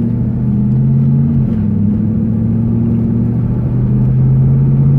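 The 5.7-litre LS1 V8 of a 1999 Pontiac Trans Am running steadily with a low drone, its pitch shifting slightly about a second and a half in. This is the weird noise the owner is trying to pin down, which he says doesn't happen under load.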